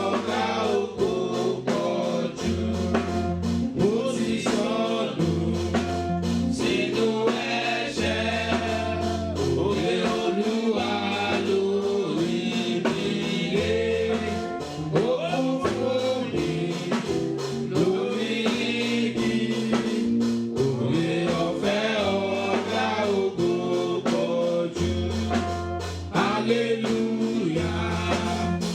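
Gospel song: voices singing over instrumental accompaniment with held bass notes and a steady beat.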